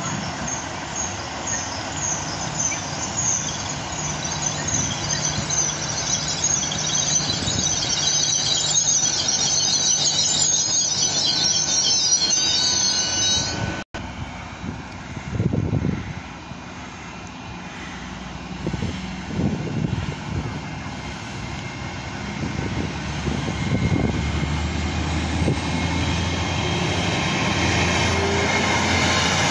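GWR Class 802 bi-mode train arriving at a platform, its brakes and wheels squealing shrilly and growing louder for about the first fourteen seconds. After a brief dropout, a lower rumble follows with a few thumps and a low hum of the train's diesel engines building towards the end.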